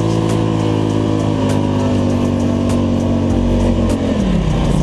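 Polaris Scrambler ATV engine running under throttle while driving through deep snow, holding steady high revs, then the revs drop about four seconds in and settle lower.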